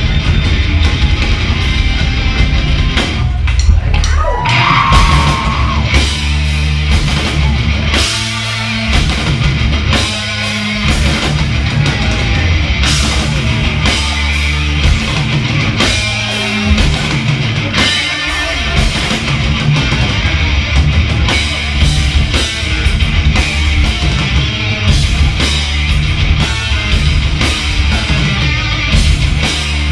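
Hard rock band playing live: electric guitar, bass and drums in a loud, driving song, with a brief sliding guitar note about four seconds in.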